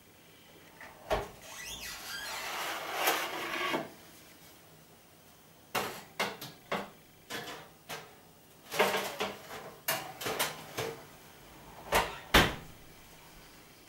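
A kitchen oven being loaded: a scraping slide as the metal baking tray goes in, then a run of clicks and knocks from the oven door and controls, the two loudest close together near the end.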